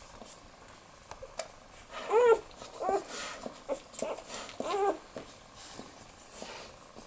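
Newborn Australian Shepherd puppies squeaking: three short, high whimpers about two, three and five seconds in, with faint clicks and rustling between them.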